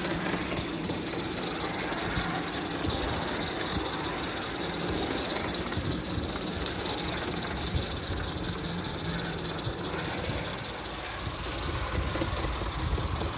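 Roundhouse Taliesin live-steam model locomotive running under steam: a steady hiss of steam with a fast exhaust beat.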